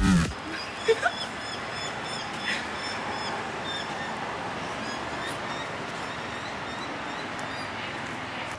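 Animal calls, like small birds chirping, repeating over a steady background hiss, with a couple of brief louder sounds in the first few seconds.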